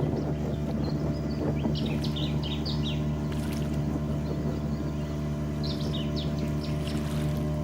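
A boat motor running steadily at an even pitch. A bird gives quick runs of high chirps over it, twice: about a second and a half in and again near the end.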